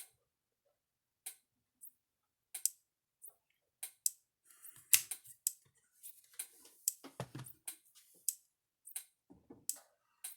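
Kencove EKD3 electric fence charger pulsing at full power, giving a sharp tick with each output pulse about every 1.3 seconds. From about halfway in, irregular clicks and a low knock of handling on the bench mix with the ticks.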